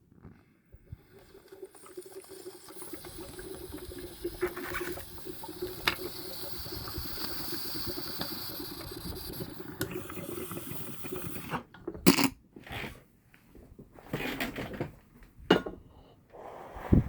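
Packaging of a model spaceship being handled and opened: a steady rustling, scraping noise for about ten seconds, then a few short separate rustles and knocks.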